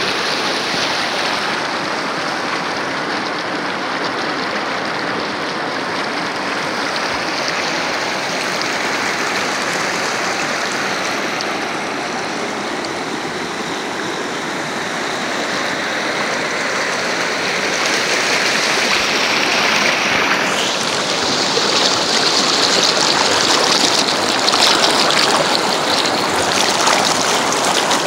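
Shallow rocky river rushing and splashing over stones in a steady wash of water noise, turning louder and hissier about two-thirds of the way in as the whitewater riffles come close.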